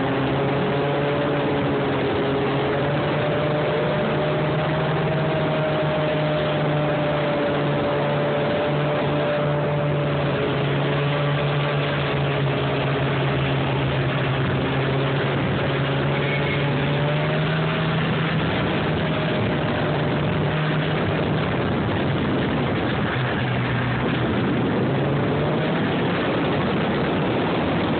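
Snowmobile engine running steadily under way, its pitch drifting gently up and down with the throttle, over a steady rushing noise.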